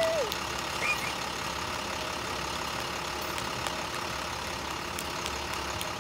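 International DuraStar shuttle bus's diesel engine idling steadily, with a short high chirp about a second in.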